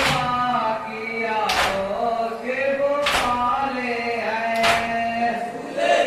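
Group of men chanting a noha (Shia mourning lament) in unison, with loud, sharp hand strikes on the chest (matam) in a steady beat about every second and a half.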